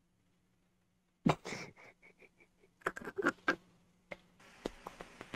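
A man's sudden, stifled burst of laughter, breath forced out through the nose, trailing off in a run of short breathy pulses.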